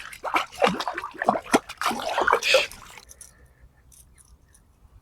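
Water splashing in quick, irregular bursts for about three seconds, then stopping, leaving only a few faint clicks.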